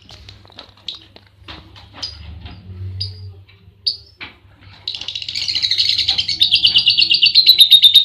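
Caged lovebird chirping: scattered short chirps at first, then from about five seconds in a fast, even run of shrill chirps, about eight a second, growing louder toward the end.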